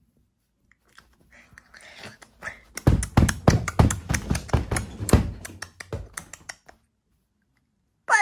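Fast, crunchy munching sounds, about five or six bites a second for nearly four seconds from about three seconds in, as a toy bunny eats. Faint rustling comes before it.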